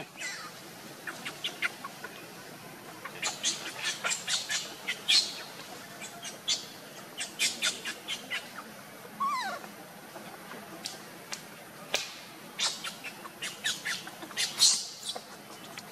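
Animal calls: short, high squeaks and chirps in quick clusters, with one longer call falling in pitch about nine seconds in.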